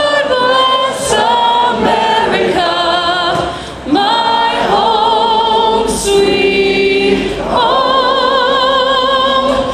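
Voices singing a slow song in long held notes with vibrato, one phrase ending and a new one starting about four seconds in.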